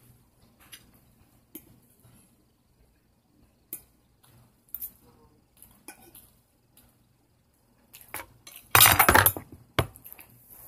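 Metal fork clinking and scraping against a dinner plate in short, scattered clicks, with one loud clatter lasting about half a second near the end.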